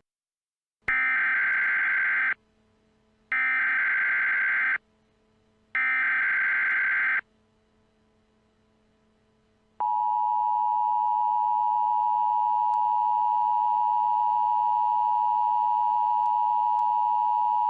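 Emergency Alert System signal: three short bursts of screeching SAME header data tones, then the steady two-tone EAS attention signal starting about ten seconds in.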